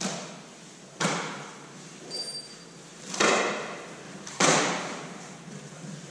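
Sharp metal bangs and knocks on corrugated steel grain-bin wall panels as they are handled and fitted, the loudest about one, three and four and a half seconds in, each ringing out in the steel bin.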